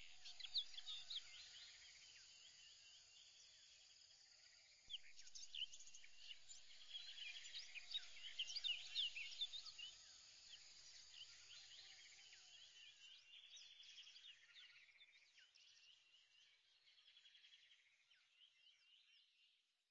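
Faint chorus of many small birds chirping, lots of quick overlapping chirps that grow louder about five seconds in and then fade away toward the end.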